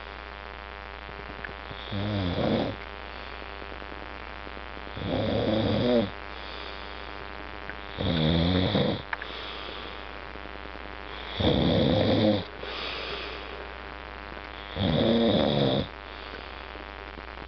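A man snoring heavily in his sleep: five snores about every three seconds, each about a second long, some followed by a softer breath out.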